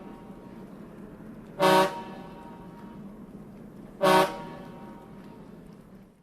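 Vehicle horn giving two short, loud honks about two and a half seconds apart, over a steady background rumble; the sound cuts off near the end.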